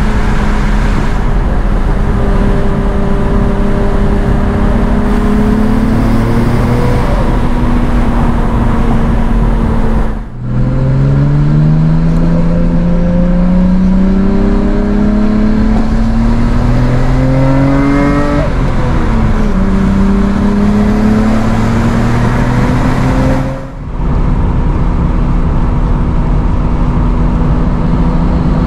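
Nissan Skyline R33 GT-R's 2.6-litre twin-turbo straight-six (RB26DETT) with tyre and road noise, heard from inside the cabin: running at a steady cruise, then pulling hard with the engine note rising, dropping sharply at an upshift about two-thirds through, and rising again before settling to a steady cruise near the end. The sound drops out briefly twice.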